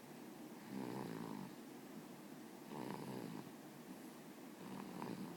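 A sleeping baby snoring quietly, three snores about two seconds apart.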